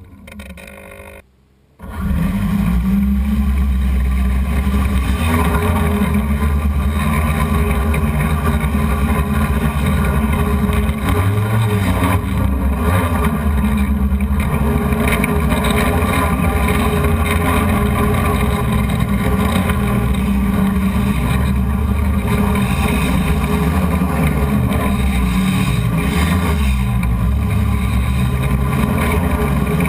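Hexacopter's six BP Hobbies brushless motors and 12-inch propellers droning steadily in flight, heard from the camera on board. The sound starts abruptly about two seconds in, and its pitch shifts now and then as the motor speeds change.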